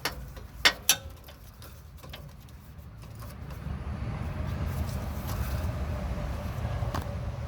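Two quick metallic clinks from the socket, ratchet and extension on the rear lower shock bolt, then a low rumble that builds from about three seconds in and holds.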